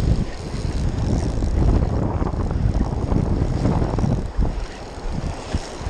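Wind buffeting the microphone in a heavy, fluttering low rumble, over surf washing and breaking around the wading angler.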